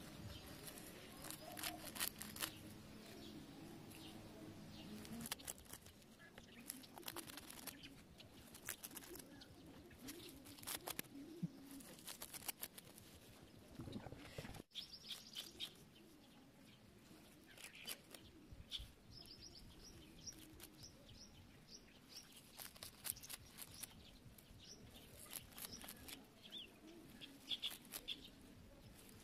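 Faint outdoor background: small birds chirping now and then, with scattered light clicks and rustles as grass leaves are handled.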